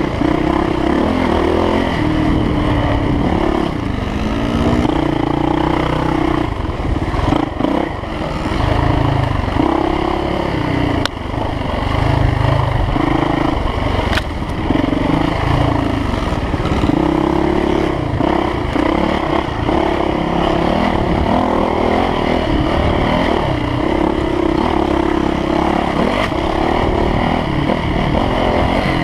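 Dirt bike engine heard close up from on board while trail riding, engine speed rising and falling over and over as the throttle is opened and closed. Two sharp clicks near the middle.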